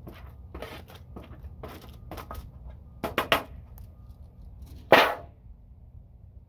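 Wooden spatula scraping chopped vegetables off a foil-covered tray into a cast-iron Dutch oven, with crinkling foil and light tapping. A few sharper knocks come about three seconds in, and one loud, sharp bang with a brief ring about five seconds in.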